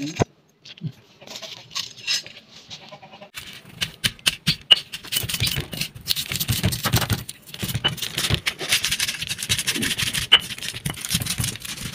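Stone roller crushing dried red chillies, garlic cloves and whole spices against a flat grinding stone (Nepali silauto and lohoro). It makes rough grinding and scraping with many sharp cracks, starting a few seconds in and going on steadily.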